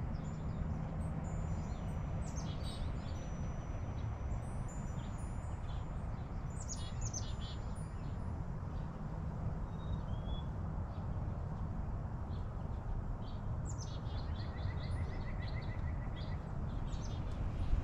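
Small songbirds chirping and calling at intervals over a steady low rumble, with a short, fast trill near the end.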